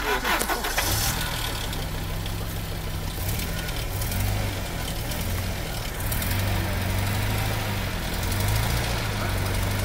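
Vauxhall Frontera's 2.8 turbodiesel engine running under load, its note rising and falling with the throttle as the vehicle, stuck on three wheels in a rut, tries to pull out. A brief clatter comes right at the start, and the engine note comes up about a second in.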